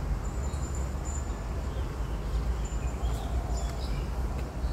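Outdoor garden ambience: a steady low rumble with a few faint, high chirps scattered through it.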